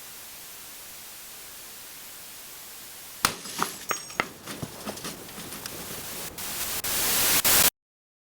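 Steady static hiss, then a run of sharp clicks and crackles over a hiss that grows steadily louder and cuts off suddenly near the end.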